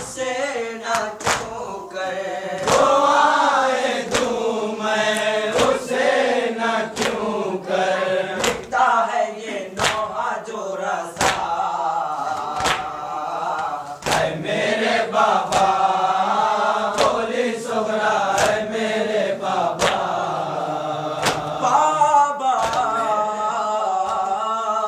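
Voices chanting a Muharram noha, a mourning lament, together, with sharp hand-struck beats of chest-beating (matam) falling about every three-quarters of a second.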